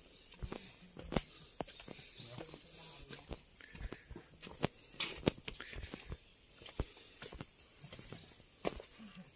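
Footsteps of a person walking on a path: soft, irregular steps, about one or two a second.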